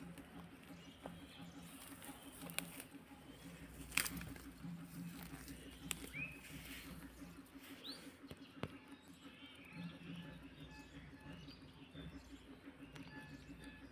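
Young rabbits shuffling and nibbling grass in a plastic basket, with scattered sharp taps, the loudest about four seconds in. A steady low hum runs underneath, and a couple of short chirps come near the middle.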